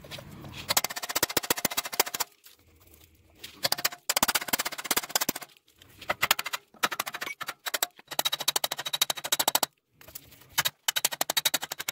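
Pneumatic air hammer chiseling off the rusted-out remnants of the nuts on the front catalytic converter's exhaust flange studs: about six short rapid-fire bursts of hammering with brief pauses between.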